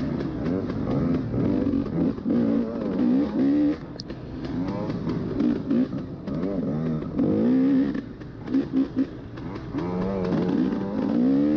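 Two-stroke dirt bike engine revving up and falling back over and over, with three quick throttle blips a little past halfway. Scattered knocks and rattles come from the bike over rough ground.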